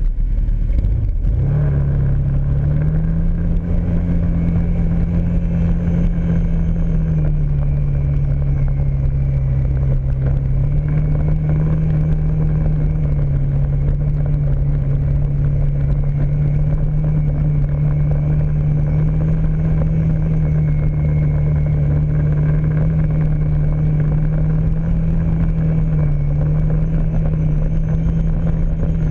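Kawasaki Brute Force ATV engine running steadily under way on a dirt trail, its pitch easing up and down a little a few times as the throttle changes.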